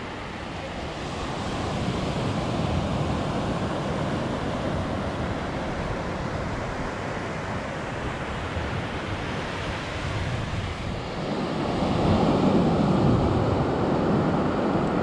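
Sea surf washing onto a sandy beach, a steady rush of waves with wind on the microphone; the wash swells about a second in and again, louder, near the end.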